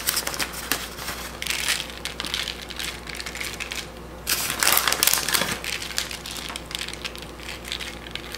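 Dry tortilla chips and parchment paper crackling and rustling as hands sprinkle and spread shredded cheddar over them, in irregular bursts with a short pause about four seconds in.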